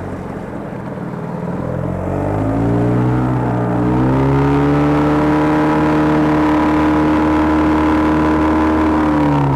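Boat motor running; it revs up over a couple of seconds, holds a steady higher speed, then eases off near the end.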